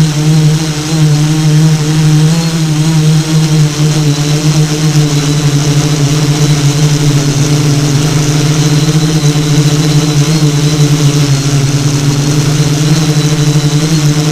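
Motors and propellers of an FPV multirotor drone running steadily, a loud hum that shifts only slightly in pitch, with a high hiss from the spinning props.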